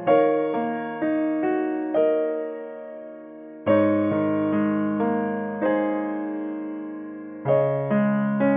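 Background piano music: a slow, gentle melody of single struck notes and chords, each ringing and fading away, with fuller chords about a third of the way in and near the end.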